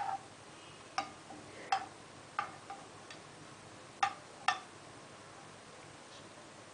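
Metal spoon clinking and tapping against a nonstick frying pan while nudging a lump of melting ghee: a series of irregular sharp clinks with a short ring, about eight over the first four and a half seconds, then they stop.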